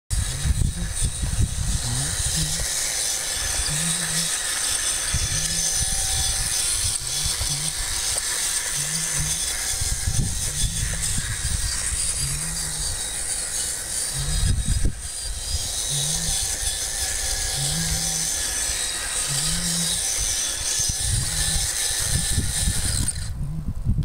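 Steady high chirring of night insects over a grassy field, with an irregular low rumble of wind on the microphone and a short low sound repeating about once a second.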